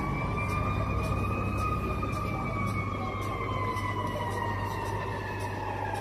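A siren wailing: its pitch holds high, then slides slowly and steadily down through the second half. A steady low hum lies underneath, with faint ticks about twice a second.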